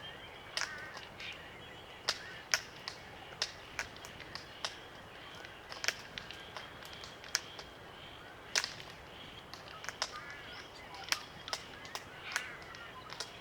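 Glossy black cockatoos feeding on Allocasuarina cones: irregular sharp clicks as their bills crack the cones, with a few short, soft creaky calls in between.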